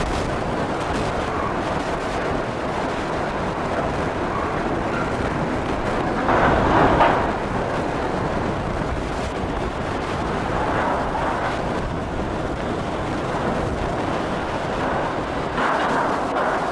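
Hurricane-force wind and driving rain blowing hard, buffeting the microphone, with a stronger gust about six seconds in and another near the end.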